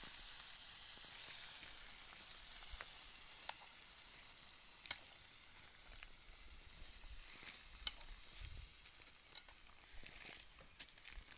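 Food sizzling in a pan over a camp fire: a steady high sizzle with scattered sharp crackles, slowly fading.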